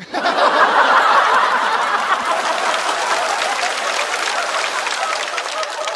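Studio audience laughing and clapping. It starts suddenly, is loudest in the first couple of seconds and slowly dies down.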